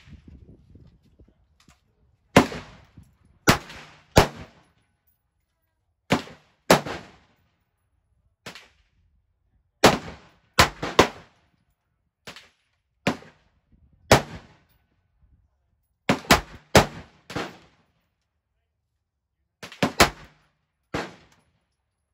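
Gunshots at a shooting range: about twenty sharp cracks, each with a short echoing tail, fired at irregular intervals and at varying loudness, some close together in quick pairs and runs.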